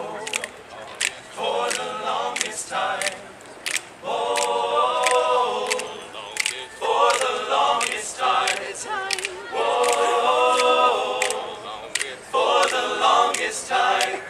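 Male a cappella group singing several short, full chords a second or so long with gaps between, over sharp percussive clicks from the voices.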